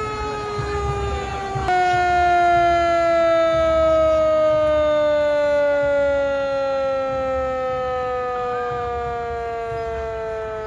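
Fire truck's mechanical siren winding down, one long tone falling slowly and steadily in pitch; it jumps louder and higher about two seconds in, then keeps sliding down.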